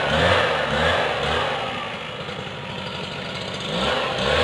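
Small petrol engine of a motorized crop-sprayer pump running steadily.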